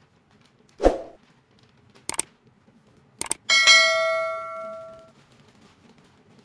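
Subscribe-button animation sound effect: a brief whoosh, two double mouse clicks, then a notification bell ding with several ringing tones that dies away over about a second and a half.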